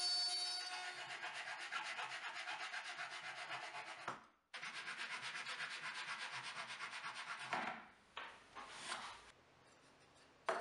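Japanese dozuki pull saw cutting plywood by hand in rapid, even strokes, with a brief break about four seconds in. At the start a power tool's whine is dying away. Near the end the sawing stops, and there is light handling of wood pieces and a single knock.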